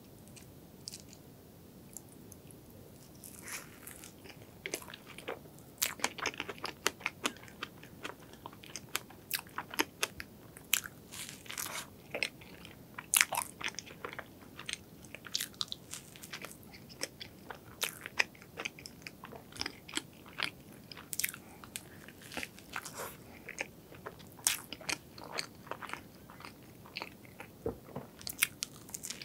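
Biting into and chewing a flaky, cream-filled strawberry pastry, with crisp crust crackling and crunching. It starts about three and a half seconds in, after a quiet start, and then goes on in quick, irregular crackles.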